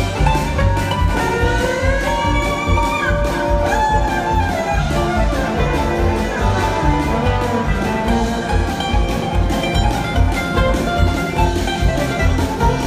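Live string band playing full-tilt: upright bass and drums keep a steady pulsing beat under banjo and guitar, with a lead melody line that slides up and down in pitch.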